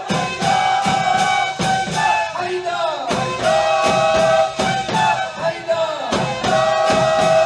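Instrumental music between chanted verses: drums beating a steady fast rhythm, about three to four beats a second, under long held melodic notes.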